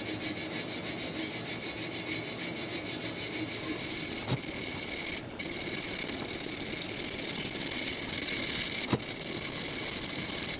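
Sandpaper (150 grit) rubbed by hand over the bare cast aluminum of a motorcycle wheel: a steady scratchy rubbing of quick repeated strokes, with a brief pause about five seconds in and two light knocks.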